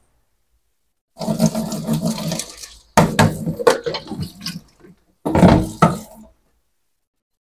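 Kitchen tap water splashing into a sink as a plastic colander is rinsed under it, in three bursts with dead silence between them and a few sharp knocks of the colander against the sink.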